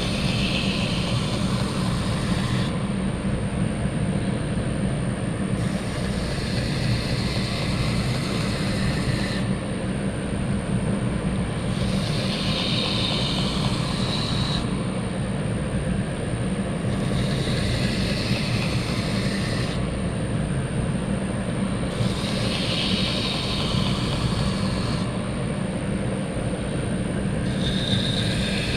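Bader 2x72 belt grinder running steadily with a leather belt charged with green rouge. A knife blade is stroked against the belt in repeated passes, each adding a hiss for two to three seconds, about every five to six seconds. This is the honing that rolls the burr off the edge.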